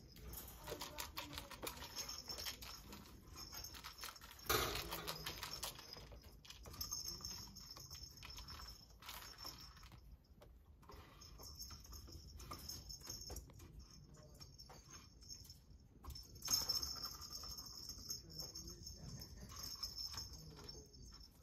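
Kittens playing with a plastic ball-track toy: the ball rattles around the plastic track, and paws click and knock on the plastic and on the wire crate. Two louder knocks come about four and a half seconds in and again about sixteen seconds in.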